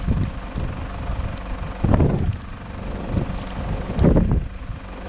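Wind buffeting the microphone in an irregular low rumble, with two strong gusts about two and four seconds in.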